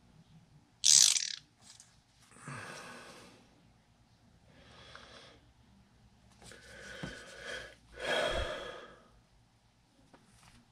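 A man breathing close to the microphone: a sharp sniff about a second in, then several slow breaths about two seconds apart.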